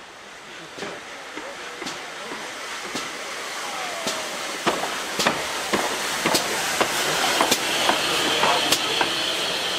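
GWR 4144, a Large Prairie 2-6-2 tank steam locomotive, draws up and passes close by, growing steadily louder. Sharp, uneven clanks and clicks come from its wheels and motion, and a steam hiss builds through the second half.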